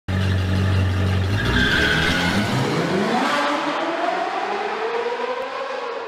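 Sports car engine sound effect: a deep steady rumble, then the engine revs up with a rising pitch as the car speeds away, fading toward the end.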